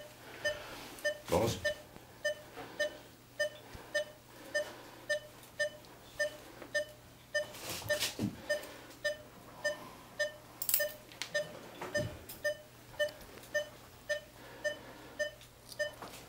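Patient monitor beeping steadily in time with the anaesthetised dog's pulse, a little over two short beeps a second. A few sharp clicks stand out, at about one, eight and eleven seconds in.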